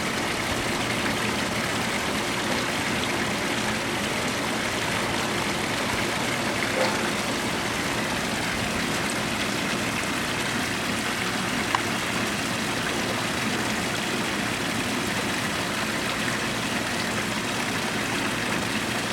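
Koi pond water running steadily, with a faint low hum underneath and a couple of brief ticks.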